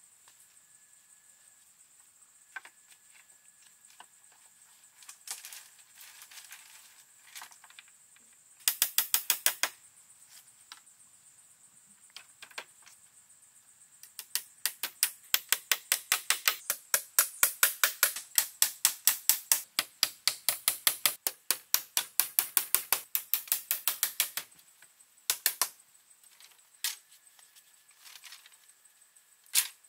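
Rapid, evenly spaced sharp clicks, several a second, in two runs: a short one about nine seconds in and a long one from about fourteen to twenty-four seconds, with a few single clicks between.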